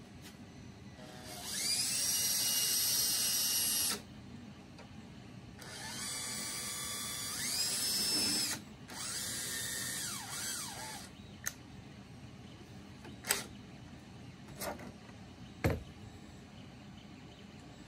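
Makita cordless drill running in three spurts, each spinning up to a steady whine and winding down again, driving screws as a CNC gantry axis is put back together. A few short, sharp knocks of parts being handled follow.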